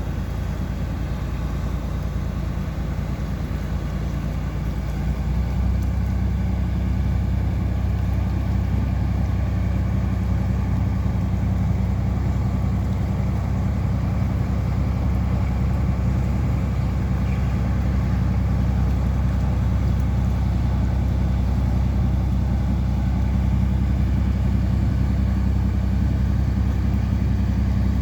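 Engine of a passing boat on the river, running with a steady low drone that grows louder about five seconds in and then holds.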